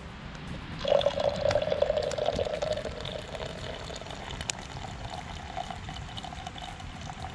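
Hot coffee poured from a Stanley coffee pot into a stainless steel cup, starting about a second in. The splashing is loudest at first, then settles into a steady stream whose pitch rises slowly as the cup fills.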